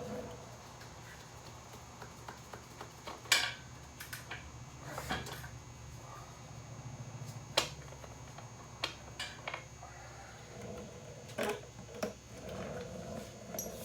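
Scattered sharp metallic clinks and knocks of hand tools being handled during work on a motorcycle's rear axle, about half a dozen, the loudest about three seconds in, over a faint steady hum.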